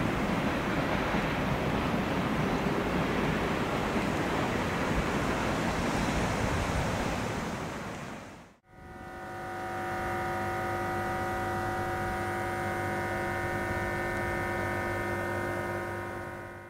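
Railway sound in two parts. First a broad, steady rush and rumble of a running train fades out about eight and a half seconds in. After a short gap comes a steady hum of several held tones from a train, which fades out at the end.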